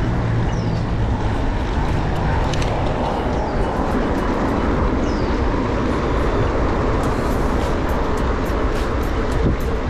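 Steady road traffic noise heard while cycling through city streets, with wind rushing over the action camera's microphone. A low hum fades out about a second in.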